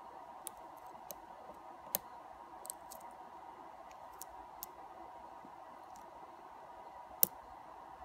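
Small, scattered metallic clicks of a hook pick and tension wrench working the pins of a euro-profile cylinder lock, with one louder click about seven seconds in as a pin sets. A faint steady hum runs underneath.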